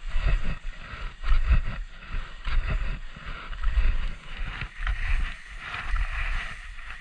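Wind buffeting the camera microphone in uneven gusts, over the steady hiss and scrape of skis sliding on packed snow.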